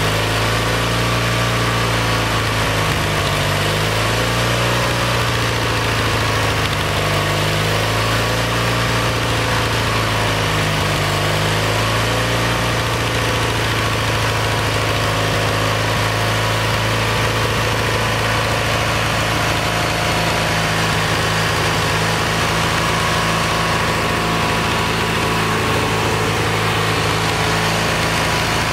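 Kohler Magnum 20 small engine running at a fast idle while its carburetor is adjusted, the speed rising and falling several times in the first ten seconds or so before settling. It runs rough, which the mechanic puts down to valves that aren't sealing and low compression rather than the carburetor.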